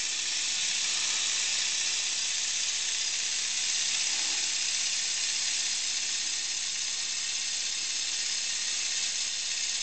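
Piston-valve model steam engine running on compressed air, with a steady hiss of air leaking from its unsealed joints. Its valve timing is not yet set.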